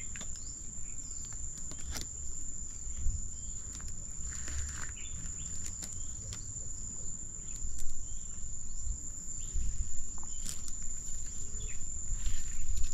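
A steady high-pitched insect drone, with a few scattered rustles and knocks over a low rumble.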